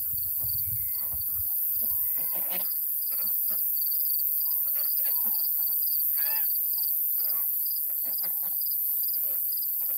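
Free-range ducks and chickens calling off and on: short scattered quacks and clucks, some with a bending pitch.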